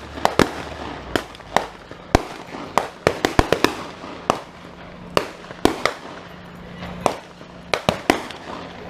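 A shootout with several guns firing blanks: about twenty sharp shots at irregular spacing, some fired in quick bunches, each followed by a short echo.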